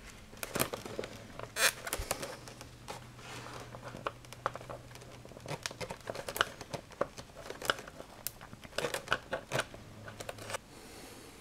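Hands handling a strengthening rod, servo wires and a screwdriver at the centre joint of an EPO foam wing, pressing the rod down into the foam: scattered small clicks, rubs and crinkles. A faint steady low hum runs under most of it.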